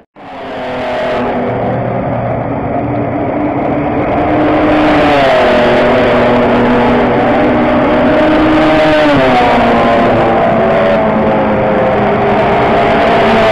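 Touring race car engine running hard at high revs along a wet straight, over a steady hiss. The engine note drops briefly about five seconds in and steps lower about nine seconds in.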